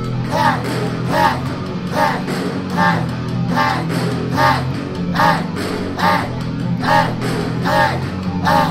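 Rap-metal backing track with no vocals: a short note that bends up and down repeats a little faster than once a second over a steady bass line.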